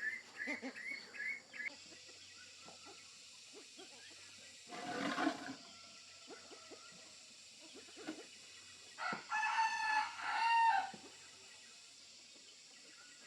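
A rooster crowing once, a loud call of about two seconds near the end. It follows a run of short, high, repeated chirps at the start and a brief rustling burst in the middle.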